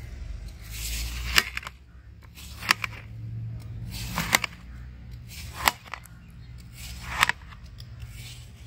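Kitchen knife slicing down through watermelon flesh in repeated strokes, about one every second and a half, each ending in a sharp click as the blade meets the steel plate beneath.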